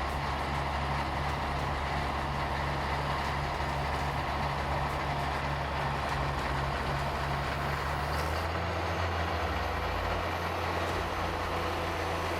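Heavy earthmoving machine's engine running steadily under load; its low note changes about eight seconds in.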